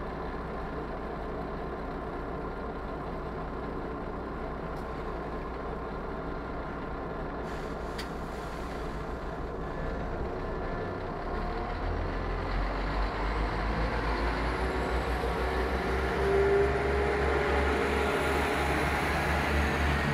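London Overground Class 172 Turbostar diesel multiple unit, its underfloor diesel engines running steadily. About eleven seconds in they deepen and grow louder as the train gets under way, with a rising whine near the end.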